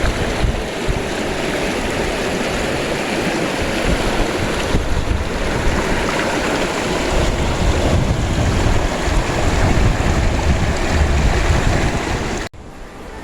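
Stream water rushing steadily, with wind buffeting the microphone; it cuts off abruptly near the end.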